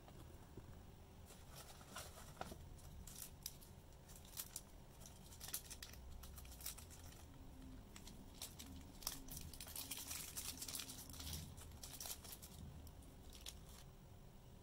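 A small plastic bag of sauce being handled over paper-wrapped rice, crinkling and rustling in faint scattered crackles that are busiest about ten to twelve seconds in.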